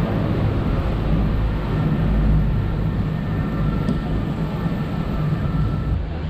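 River tour boat's engine running with a steady low drone, mixed with rushing water and wind noise.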